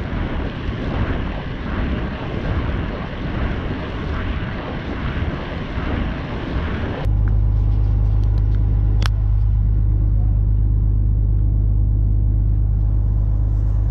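Wind rushing over the microphone and tyre noise from a mountain bike riding a trail. About halfway through it cuts abruptly to a steady low rumble, with a single sharp click a couple of seconds later.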